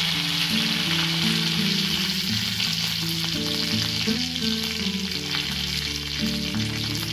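Curry leaves sizzling in hot oil with mustard and cumin seeds in a kadhai, a steady frying hiss. Soft background music with held notes plays underneath.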